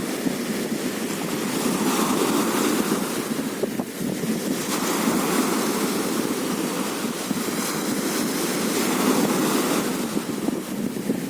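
Sea waves washing onto a beach, swelling and easing every few seconds, with wind noise on the microphone.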